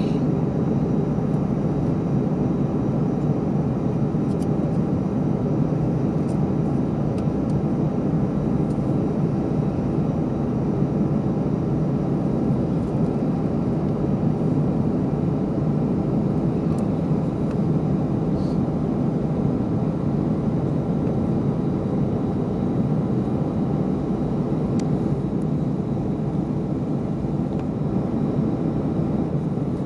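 Steady cabin noise inside an Airbus A319 on the ground, its jet engines running evenly with no change in power.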